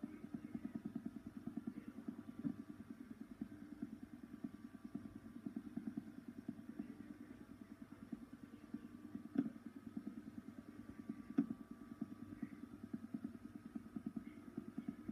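Faint low buzzing hum from a TV speaker playing the blank tail of a VHS tape, with a couple of soft clicks about nine and eleven seconds in.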